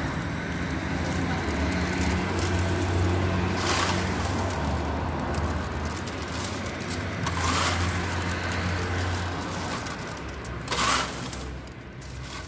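Popcorn being scooped with a plastic cup and tipped into a plastic bag: three short rustling scrapes, about a third of the way in, past halfway and near the end. Under them runs a steady low hum that stops about three-quarters of the way through.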